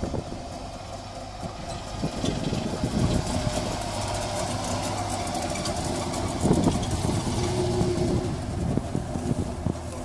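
Wartburg 353 saloon with a two-stroke engine driving up and pulling in close by, its engine running and growing louder about two seconds in, then idling.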